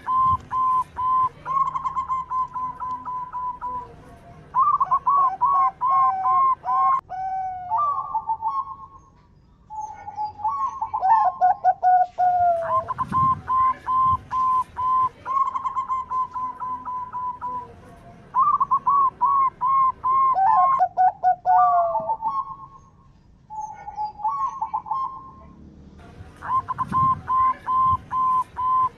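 Zebra dove (perkutut) singing: bouts of rapid, clipped coo notes, each bout ending in lower, falling coos, with short pauses of a second or two between bouts.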